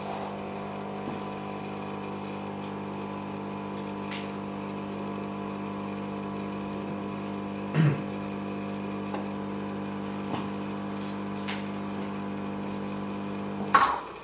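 Gemilai espresso machine's Italian vibratory pump humming steadily as it pulls two shots of espresso, with a single knock about eight seconds in. The pump cuts off with a sharp click near the end as the brew cycle finishes.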